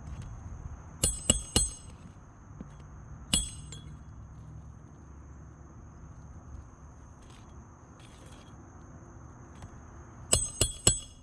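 Roofer's hatchet driving roofing nails into a 3-tab asphalt shingle: sharp, ringing metal strikes. Three come in quick succession about a second in, a single one a couple of seconds later, and another quick run near the end.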